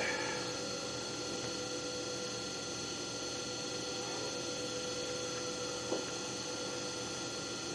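Steady background hum made of several fixed tones, with one faint click about six seconds in.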